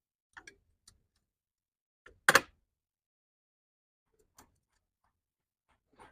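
A few faint clicks and one sharp knock about two seconds in, from tools and parts being handled during work on the engine, which is not running.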